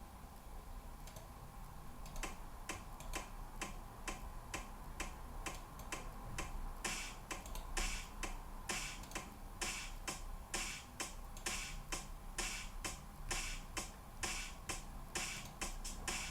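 A simple electronic beat being built: an evenly spaced ticking click pattern, filled out from about seven seconds in by hissy, hi-hat-like hits in a steady rhythm.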